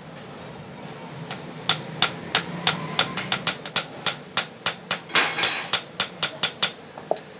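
Hand hammer striking steel tongs on an anvil in a quick, steady run of sharp blows, about four a second. The blows start a little under two seconds in and stop near the end, with one rougher, longer clatter about five seconds in.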